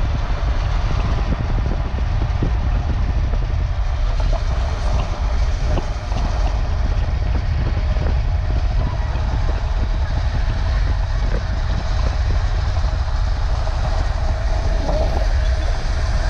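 Steady rumble of a moving vehicle, with faint scattered clicks and rattles.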